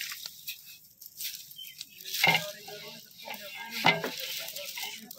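Long metal ladle stirring sugar and water in a large metal degh to dissolve the sugar into syrup, scraping against the pot, with two louder scrapes or knocks about two and four seconds in.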